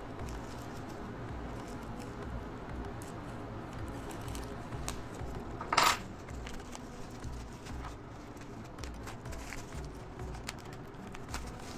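Hands opening a camera's retail packaging: scattered small clicks and rustles of box and plastic, with one louder short scrape of the packaging about six seconds in, over a low steady hum.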